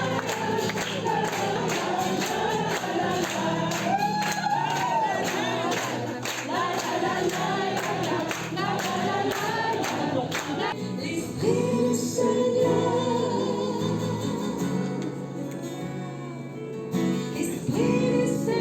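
Background music: a choir singing with percussion. About ten seconds in the busy part gives way to softer held chords.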